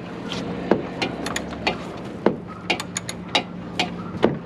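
Irregular sharp clicks and light knocks, roughly two or three a second, from hand tools and plastic headlight parts being worked on, over a steady low hum.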